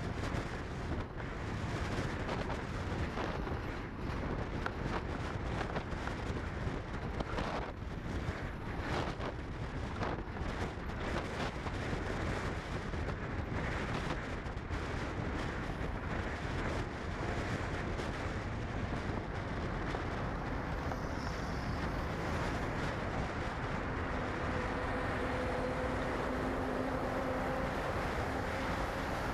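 Steady vehicle noise mixed with wind buffeting the microphone, with a faint steady tone joining in during the last few seconds.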